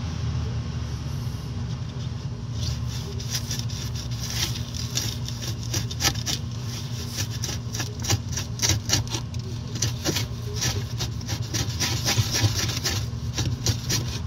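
Quick, irregular scraping strokes on the aluminium of a direct-cooling refrigerator being readied or cleaned for aluminium welding, over a steady low hum. The scraping starts a couple of seconds in and stops shortly before the end.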